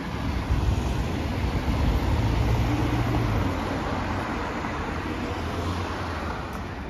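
A motor vehicle passing by on the road: engine hum and road noise build up about half a second in, are loudest around two to three seconds in, and fade away toward the end.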